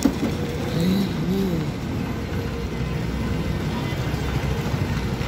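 Steady low rumble of road traffic in the background, with a short knock at the start and a brief rising-and-falling pitched tone about a second in.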